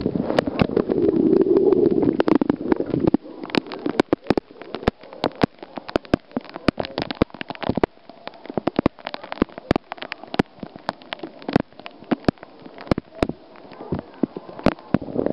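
Water spray pouring down onto a pool surface, a dense rushing splash for the first three seconds. After that, sharp irregular taps of droplets striking close to the microphone, several a second, over a quieter patter of falling water.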